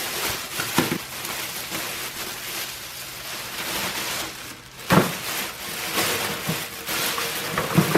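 Thin plastic bags crinkling and rustling as bagged power tools are handled in a bucket, with three knocks: about a second in, near the five-second mark (the loudest) and near the end.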